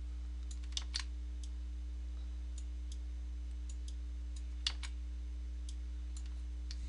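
Irregular light clicks of a computer mouse, a dozen or so, the loudest a pair about a second in and one near the middle, over a steady low electrical hum.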